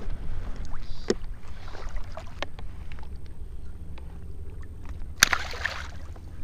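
Steady low wind rumble and water noise around a wading angler, with a few light clicks from handling. About five seconds in, a short splash as the small striped bass is tossed back into the water.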